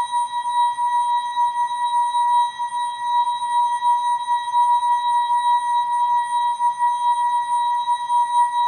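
ASKfm sound effect slowed down and time-stretched into one long, steady tone around 1 kHz with fainter higher overtones, its loudness wavering slightly.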